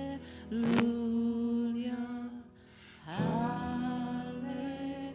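Slow worship song: a sung 'hallelujah' held over sustained chords, fading briefly a little before the middle before a new chord comes in. A brief click about a second in.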